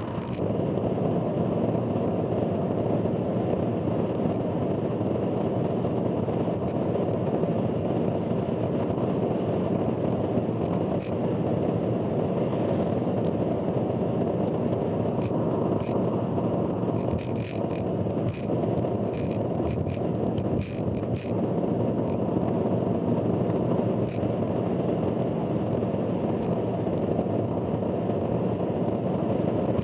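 Car driving on an expressway: a steady, loud road and cabin noise, sped up four times, with scattered sharp ticks and clicks. The uploader warns that this recording carries a loud abnormal noise.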